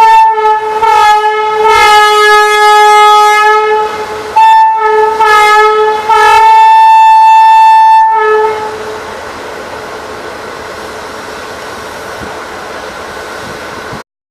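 WAP-7 electric locomotive's air horn sounding three loud blasts: a long first one of about four seconds, a shorter second and a slightly longer third. Then it falls away to a steady background noise.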